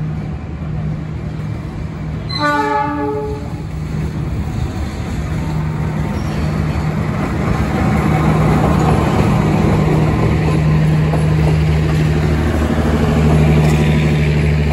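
CC 206 diesel-electric locomotive sounding two short horn blasts a few seconds in, its diesel engine running steadily. The sound grows louder as it passes close by, followed by passenger coaches rolling past on the track.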